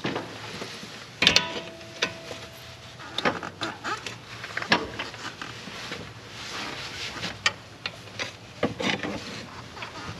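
Metal tools and parts clinking and clanking during work on a car's CV axle: a string of separate knocks and clicks, with one loud clank about a second in that rings on briefly like struck metal.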